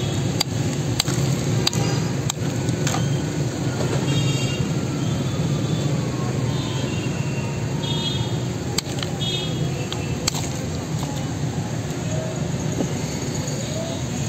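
Electric mincer-style juice machine running with a steady hum while peeled sweet limes are pushed through it with a wooden plunger, with sharp knocks now and then.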